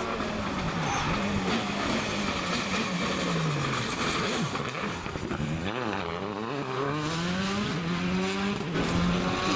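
Rally car engine worked hard, its pitch climbing and dropping again and again as the driver shifts gear and lifts off.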